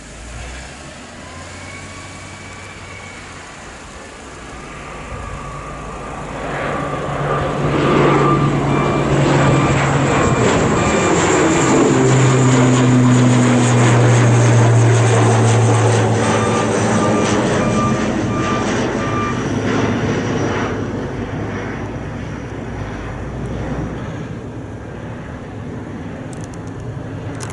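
ATR 72-500 twin turboprop (Pratt & Whitney PW127 engines) climbing out after takeoff and passing overhead. The propeller drone and a high turbine whine build from about five seconds in, are loudest around the middle, drop in pitch as the aircraft goes past, and fade away toward the end.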